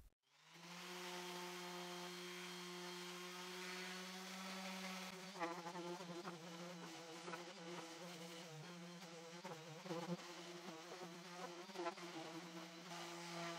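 Makita random orbital sander running on pine boards, a faint steady buzzing hum that starts about half a second in and turns uneven about five seconds in as it works over the wood.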